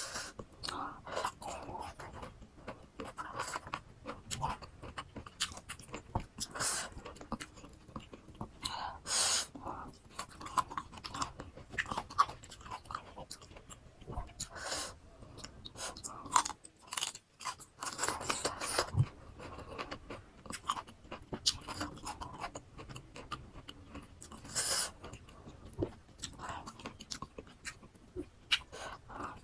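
A person chewing and crunching mouthfuls of fresh cut fruit (rujak) close to the microphone: irregular wet crunches and chewing, with a few louder bites.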